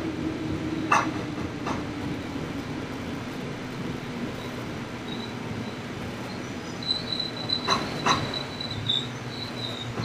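Gyeonggang Line electric commuter train heard from inside the carriage as it runs and slows: a steady rumble of wheels on rail with a low motor hum that slowly falls in pitch, and a few sharp clicks. From about seven seconds in, a thin high squeal comes and goes.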